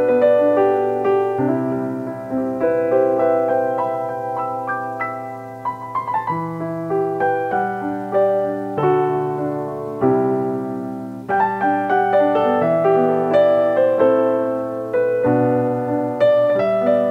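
Background piano music: an instrumental piece of held chords and melody notes, each note struck and fading.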